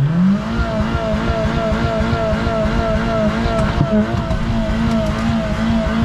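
Suzuki Samurai's engine revving up right at the start, then held at high revs. Its pitch wavers up and down in an even, quick rhythm.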